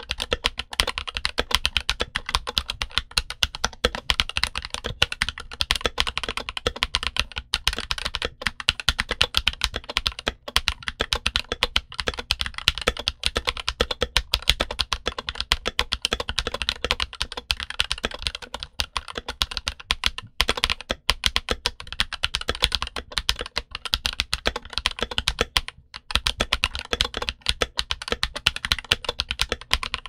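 Continuous fast typing on a Redragon K617M compact keyboard with Redragon magnetic Hall-effect linear switches: a dense run of keystrokes, broken by a few short pauses.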